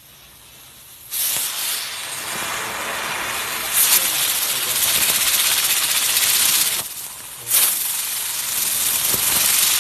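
Small ground firework hissing loudly as it spews sparks and smoke. The hiss starts about a second in, breaks off briefly about seven seconds in, then starts again.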